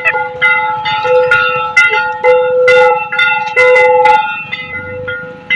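Metal puja bell struck again and again, unevenly, several times a second, its ringing tones overlapping and sustaining between strikes.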